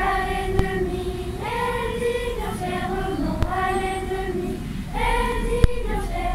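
Children's choir singing a slow melody in long held notes, with no instruments.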